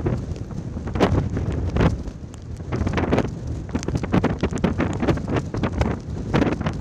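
Strong, gusty wind buffeting the microphone in irregular blasts, the wind of a tornado over open water.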